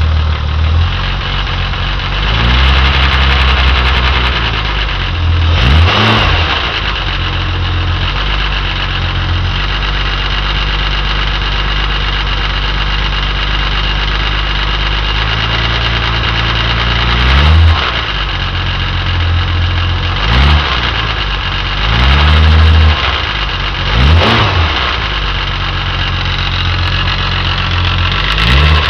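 Jaguar E-type Series II's straight-six engine idling with an awful mechanical noise, which the owner traces to the timing chain end of the exhaust camshaft. The throttle is blipped about six times, each a brief rise and fall in engine speed.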